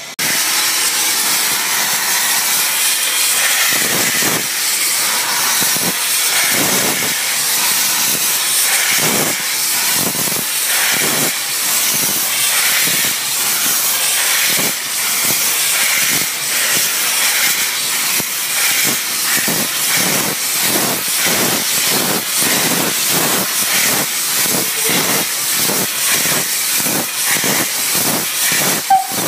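Narrow-gauge steam locomotive Countess pulling away: a steady hiss of steam with exhaust chuffs that start a couple of seconds apart and quicken to a few a second as it gathers speed.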